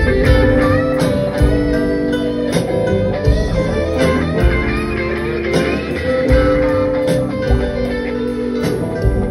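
Live band playing a blues number: an electric guitar solo of bending, sustained notes over held keyboard chords and drums.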